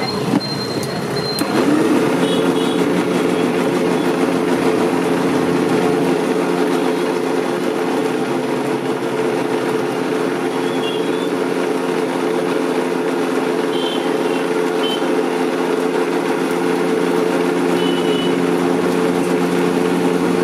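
Electric countertop blender (mixer-grinder) blending pomegranate seeds into juice. The motor spins up about a second and a half in, then runs steadily at a constant pitch.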